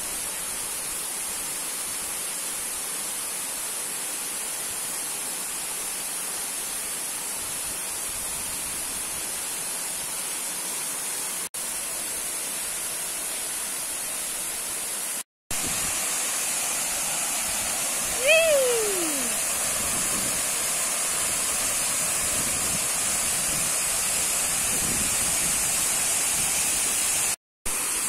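Waterfall pouring down a rock face into a pool, a steady rushing of falling water that drops out briefly at edits and is a little louder after the one about halfway through. About two-thirds of the way in, a short pitched sound slides downward over it.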